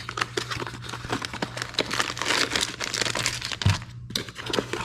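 Plastic packaging crinkling and rustling as the kit's accessory pouch is handled and opened, full of irregular small crackles and clicks.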